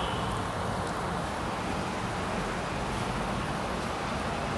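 Steady background noise: an even hiss with a low rumble underneath and no distinct events.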